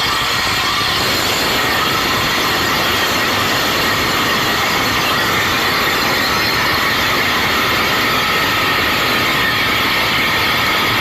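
CNC wood lathe turning a wooden workpiece, the tool cutting steadily with a high whine running through the noise.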